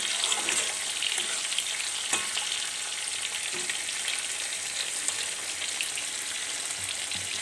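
Prawns in mustard and poppy-seed paste sizzling and bubbling in a kadai as the curry boils, with a spoon clicking and scraping against the pan now and then as it is stirred; one sharper click about two seconds in.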